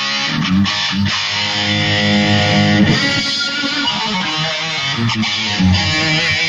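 Electric guitar played through a Marshall amp in a stage soundcheck, held notes that change every second or two.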